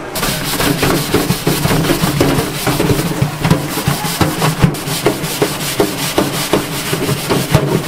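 Rapid, uneven knocking with rubbing or scraping between the strikes, several a second, like hard utensils working on a wooden surface.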